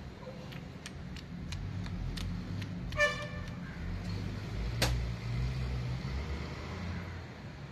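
Light metallic clicks and a sharp knock as a piston is worked down into a cylinder bore of a Fiat 1.3 Multijet engine block through a piston ring compressor, over a low rumble like passing traffic. A short toot sounds about three seconds in.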